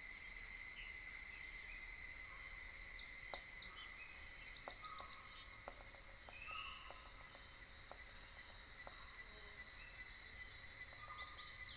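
Faint forest ambience: steady insect chirring, likely crickets, with short trilled bird chirps, and a few scattered sharp taps through the middle.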